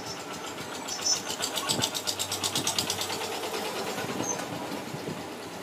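An engine running with a quick, even pulse that swells about a second in and eases off after about four seconds.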